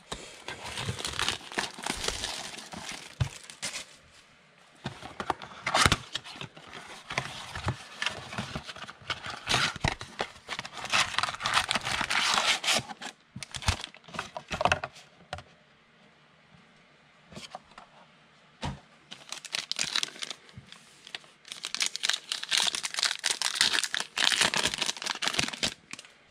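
A 2020 Donruss football card box being torn open and its pack wrappers torn and crinkled: rustling, tearing paper and plastic in bursts, with a quieter lull about midway and a few sharp snaps.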